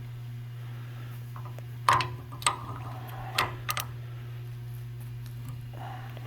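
A hand tool clinking against the metal of a transfer case as a nut is turned loose: about five sharp metallic clacks between about two and four seconds in, over a steady low hum.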